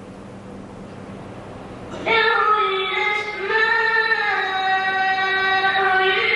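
A boy reciting the Quran in a melodic chant. After a pause of about two seconds with only faint background hiss, his voice comes in and holds long, drawn-out notes that glide between pitches.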